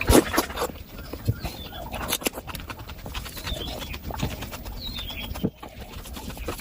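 Close-miked wet chewing and lip smacking while eating mutton fat curry with rice: irregular clicks and squelches, the loudest just after the start.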